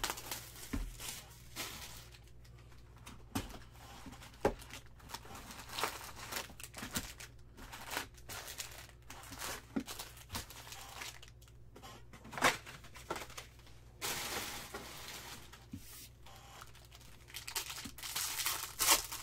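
Plastic wrappers of Bowman Draft baseball card packs crinkling and being torn open by hand, with many small crackles and longer tearing rips about two-thirds of the way through and again near the end.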